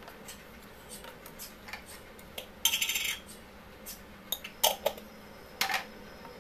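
Spoons clinking and tapping against a bowl and a jar while batter is stirred and spice powder is sprinkled in: scattered light clicks, a quick run of clinks about three seconds in, then a few sharper taps near the end.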